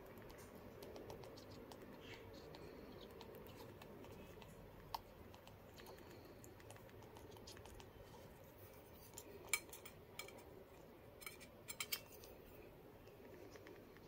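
Spoon-feeding a parrot chick at a stainless steel bowl: a few sharp, faint clicks and taps of the spoon and beak against metal, one near the middle and a cluster in the last third, over a near-silent room.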